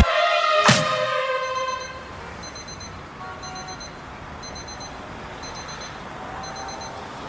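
Electronic dance music in a quiet breakdown: a single hit about a second in with a synth chord fading away after it, then a soft high double beep repeating about once a second over a faint background.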